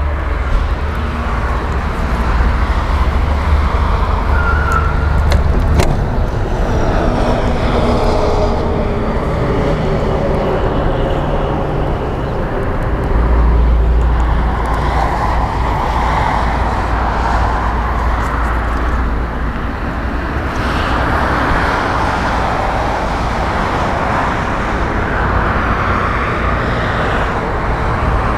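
Steady outdoor road-traffic noise, with a deep low rumble that comes and goes and faint passing-vehicle sounds.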